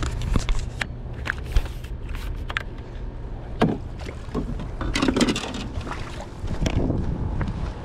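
Scattered knocks and clatter of a landing net and fishing gear being handled against a small boat's hull, over a steady low rumble.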